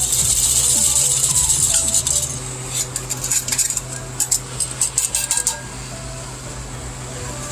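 Coffee beans clicking and rattling in a dense patter over a steady appliance hum, with soft background music.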